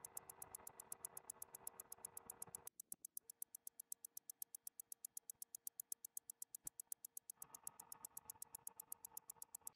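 Faint, rapid, perfectly even ticking of a clock, several ticks a second, with a faint steady hum through the middle.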